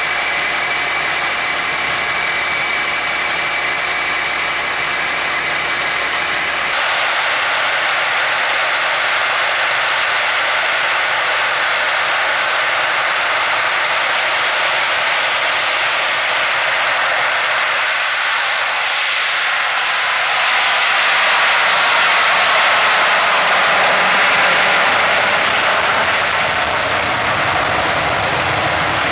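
Blue Angels F/A-18 Super Hornet jet engines running on the runway. At first there is a steady whine with several high tones, then an even rushing jet noise that grows louder about twenty seconds in as the jets power up for a formation takeoff.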